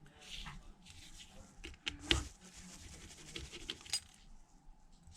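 Light clicks and taps of small precision tools and tiny parts being handled on an opened smartphone, with one sharper click about two seconds in and a few soft scrapes.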